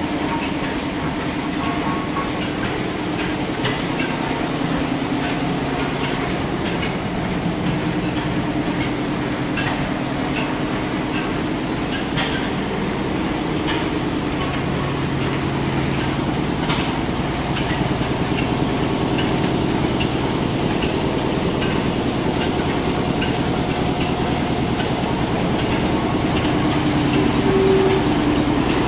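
Old steam and stationary engines running together: a steady mechanical din with sharp clicks and ticks scattered throughout.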